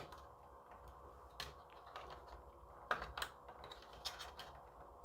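Small plastic clicks and handling noise as a cable connector is worked into a motherboard header, with a close double click about three seconds in as it latches into place.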